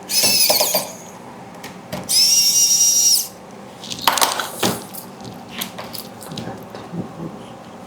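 Cordless electric screwdriver running in two short bursts of about a second each, with a high motor whine, driving in the screws that hold the 3D printer's motors, followed by a few light clicks of the tool and parts.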